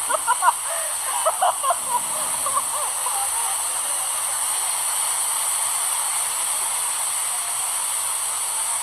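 Steady rush of a waterfall, with a few short calls heard over it in the first couple of seconds.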